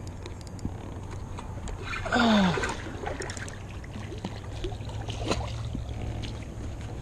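Water lapping and splashing around a fishing kayak, over a steady low wind rumble on the microphone, with light clicks. One short falling-pitched sound about two seconds in.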